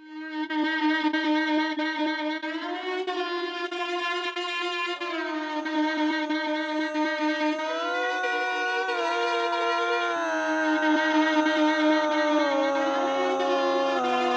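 Instrumental intro of a rap track: a single melodic lead holds long notes and slides smoothly between pitches, with low bass notes joining about ten seconds in.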